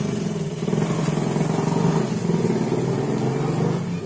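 An engine running steadily with a low, fast-pulsing hum.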